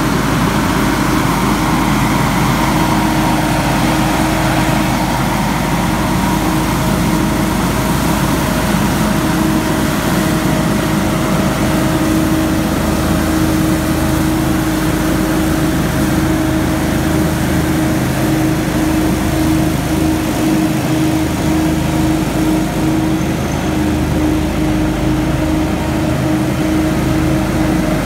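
Hurricane stand-on leaf blower running steadily, its engine hum under a steady whine from the blower fan, as it blows a mat of wet leaves.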